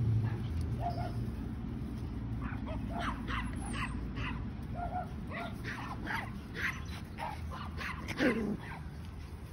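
Yorkshire terrier puppies playing, giving many short high yips and whimpers as they tussle over a rope toy, with one louder cry that falls in pitch near the end.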